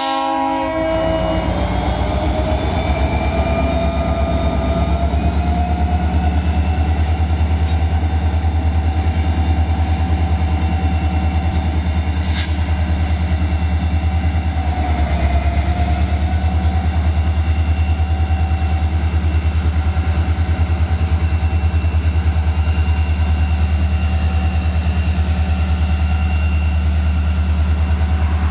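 Diesel-electric freight locomotives passing at close range, their engines running hard with a loud, steady low rumble and a whine that rises in pitch over the first several seconds and then holds.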